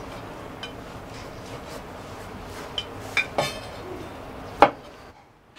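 Kitchen knife cutting fried tofu on a wooden cutting board: a few sharp knocks of the blade on the board, the loudest near the end, over a faint steady hiss.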